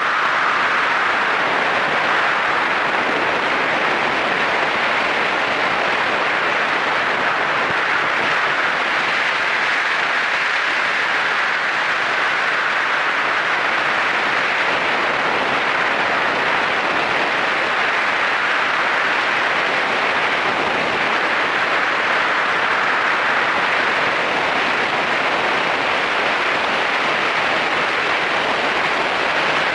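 Steady rush of wind and road noise from a Yamaha SRX400 motorcycle riding at speed, even and unbroken, with no clear engine note standing out.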